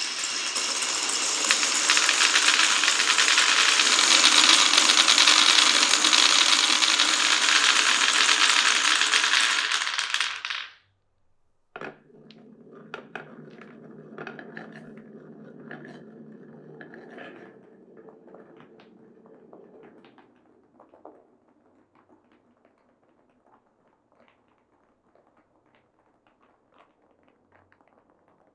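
Marbles rolling and clattering through a wooden marble run: a loud, dense rattle for about ten seconds that stops abruptly, then after a short gap quieter rolling with many small clicks that dies away into scattered ticks.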